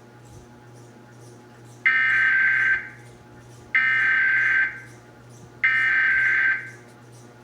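Emergency Alert System SAME header: three identical buzzy digital data bursts, each just under a second long and about a second apart. They are the coded header that opens an EAS alert, here for a required monthly test.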